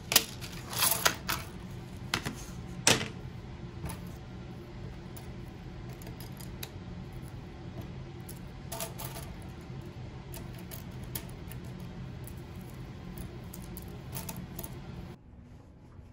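Wooden pick-up sticks clicking against each other and against a wooden tabletop. Several sharp clacks come in the first three seconds, then scattered light ticks as single sticks are lifted and shifted off the pile.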